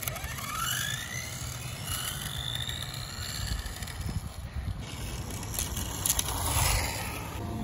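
Electric RC touring car on a Tamiya TT-02 chassis, run on a 3S battery, accelerating away over asphalt. Its motor and gear whine rises in pitch over the first two seconds or so, then gives way to a rougher, fainter running sound as the car moves off.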